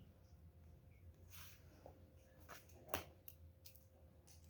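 Near silence: room tone with a few faint, scattered clicks or taps.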